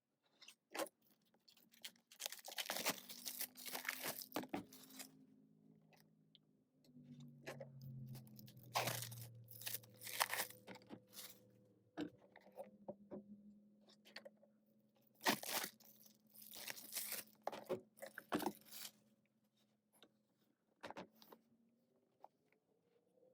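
Plastic shrink-wrap being torn and crinkled off a K-pop album package, in irregular bursts of crackling with short snaps between them.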